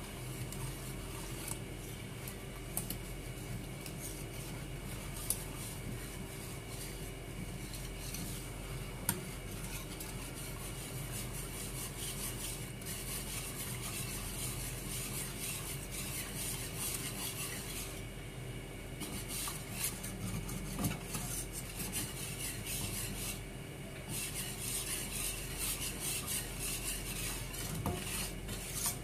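Wire whisk beating a thin rice-flour batter in a metal bowl: continuous scraping and sloshing strokes of the wires against the bowl, with occasional clinks. The whisking pauses briefly twice in the second half.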